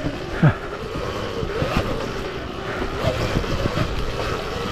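Sur Ron Ultra Bee electric dirt bike riding over rough trail: the motor's whine wavers up and down with the throttle. Scattered knocks come from the ground, with a louder thud about half a second in.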